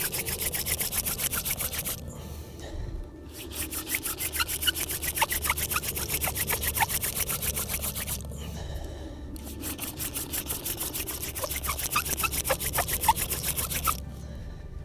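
Hand-drill friction fire: a wooden spindle spun back and forth between the palms, grinding into the wooden fireboard in a fast, even rasping rhythm to burn in the pilot hole. It stops twice for about a second and ends a little before the end.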